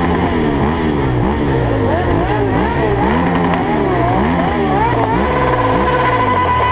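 Several motorcycle engines revving over and over, each rev rising and falling in pitch, the revs overlapping into one continuous loud noise. A steady high tone joins about five seconds in.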